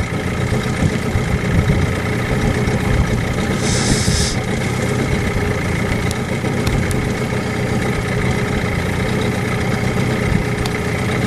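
Small fishing boat's motor running steadily at low trolling speed, with a brief high hiss about four seconds in.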